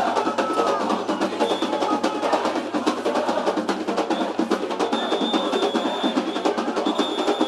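Samba school bateria playing a fast samba rhythm on its own, a dense run of rapid snare-drum strokes over the bass drums, with no singing.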